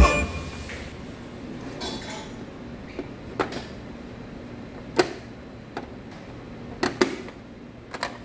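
Hard plastic clicks and taps from a Bruder toy delivery van being handled as its hinged side cargo door is opened and snapped shut: about seven sharp clicks spread over several seconds, two close together about seven seconds in, with a brief scrape near two seconds.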